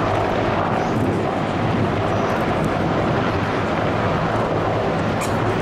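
Steady drone of a low flypast of military helicopters: the rotors and turbine engines of Bell UH-1J and AH-1S helicopters and small OH-6 observation helicopters. Strong wind buffets the microphone over it.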